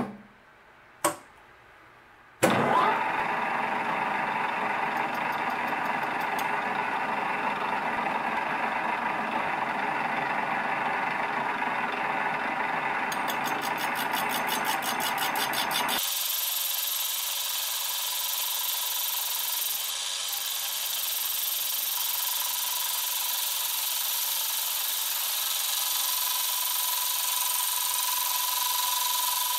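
Wasino LRS-55A lathe: two clicks, then the spindle starts about two seconds in and runs steadily with a hum. About thirteen seconds in a rapid, even ticking starts as the tool reaches the notched end face of the workpiece. From about sixteen seconds the sound is sped up fourfold, so the running and cutting sound higher.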